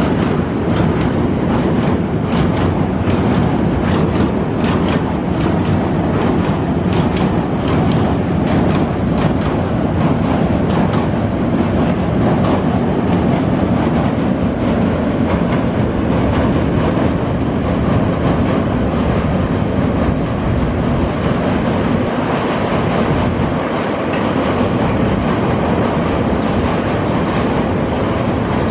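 Passenger train cars rolling across a steel truss railway bridge: a steady loud rumble with a regular clickety-clack of wheels striking rail joints, which grows smoother and less clattery after about halfway.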